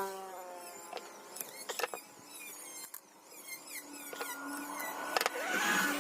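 Sharp metallic clinks and knocks of tools and engine parts being handled during a scooter engine teardown, several separate strikes, with quick high chirping squeaks throughout.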